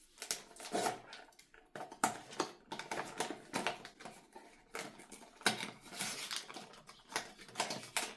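Packaging being handled and opened: a cardboard blind box and its plastic inner wrapping crinkling and rustling, with a steady run of irregular crackles and small clicks.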